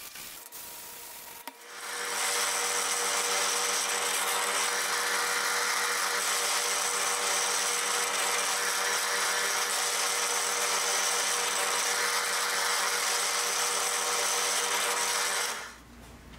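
Benchtop drill press motor running steadily while a thin bit drills a small hole through a wooden disc. It spins up quickly about a second and a half in and winds down shortly before the end.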